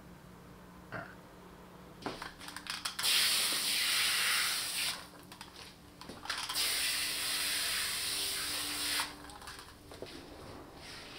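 Water sprayed onto potted plants from a sprayer: a short spattering, then two long, even sprays of about two seconds each.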